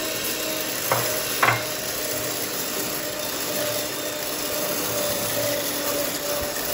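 Electric hand mixer running steadily, its wire beaters whipping cream in a glass bowl. Two short sharp knocks come about a second in.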